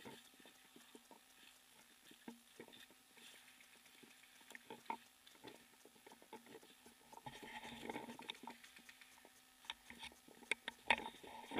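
Faint footsteps crunching through dry leaf litter and twigs, with scattered small snaps and rustles, growing denser about seven seconds in and again near the end.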